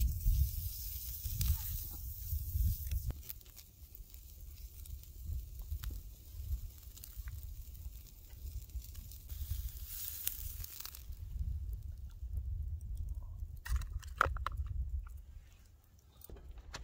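Steak sizzling on a wire grill over a wood campfire, the fire crackling, over a low rumble. The sizzling hiss drops away about two-thirds of the way through, leaving scattered crackles.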